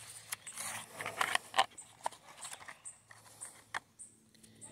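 Irregular light clicks and taps, a few a second and uneven in loudness, over a faint steady low hum.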